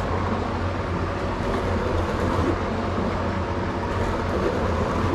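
Steady mechanical hum and rushing noise, unchanging throughout, from a machine running in the workshop.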